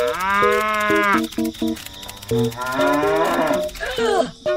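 Cow mooing twice, a long moo at the start and another about three seconds in, dubbed in as a sound effect over light plucked background music.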